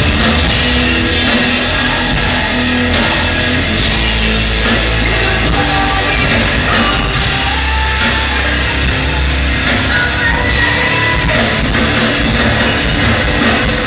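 A metalcore band playing live at full volume: heavy distorted guitar over a pounding drum kit, dense and steady throughout.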